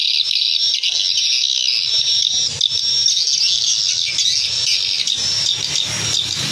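Swiftlet calls: a dense, continuous high twittering of many overlapping chirps at a steady level, the sound used to lure swiftlets into a nesting house.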